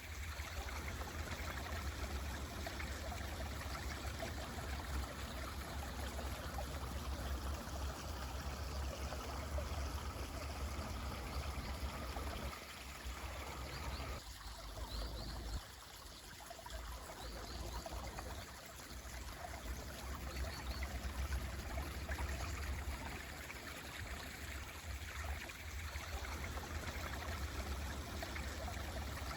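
Mountain stream flowing and burbling continuously, with a steady low rumble under it. A few short, faint bird chirps come around the middle.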